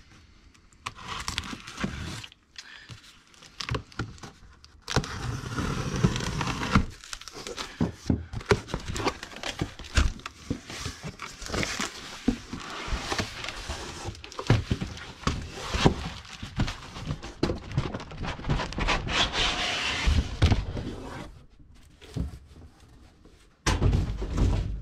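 Cardboard shipping box being opened and unpacked by hand: irregular rustling and crinkling of cardboard and packing material, with many short knocks and clicks as contents are handled.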